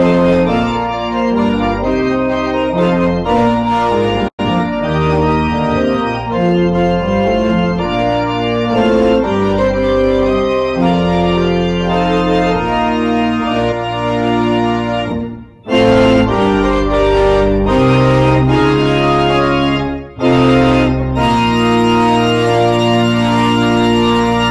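Church organ playing slow, sustained chords over held bass notes. The music dips briefly about fifteen and twenty seconds in.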